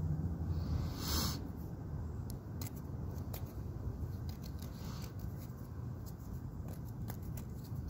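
Fingers rubbing dirt off a freshly dug coin: soft scratchy rubbing with many small clicks, over a steady low rumble.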